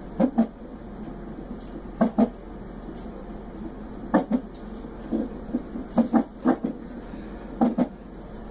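Fetal heart monitor's Doppler speaker during a non-stress test, picking up the unborn baby's hiccups as sharp double thumps about every two seconds over a steady background hiss.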